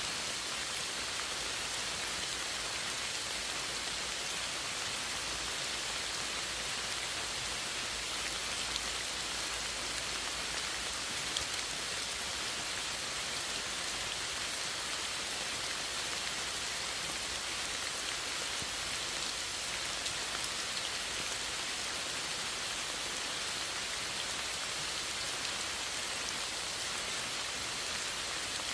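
Steady rain falling, an even hiss of drops with faint scattered patters of individual drops landing on a surface.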